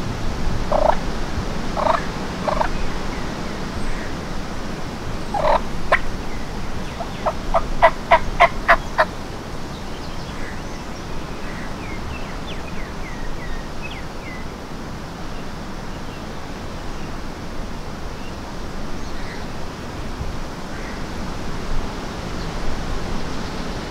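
Wild turkeys gobbling: several short calls, then a fast rattling run of notes about eight seconds in.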